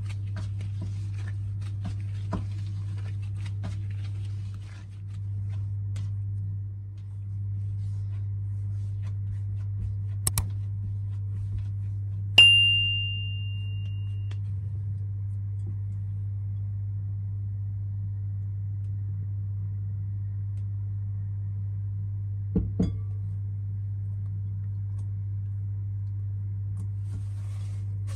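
A steady low hum with soft handling taps. Then comes a click, and about twelve seconds in a single bright bell ding that rings out for about two seconds, the subscribe-button sound effect. Two quick knocks come near the end.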